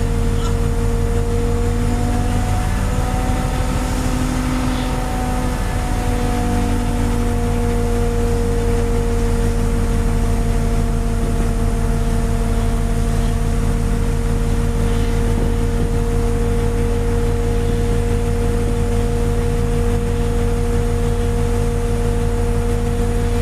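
Fishing boat's engine running steadily under way, its pitch dipping slightly and recovering a few seconds in.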